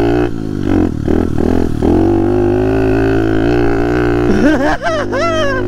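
Pit bike's small single-cylinder engine under way. It revs up and drops back several times in quick succession, holds a steady pitch for a couple of seconds, then falls off and revs up sharply in a few quick swells near the end.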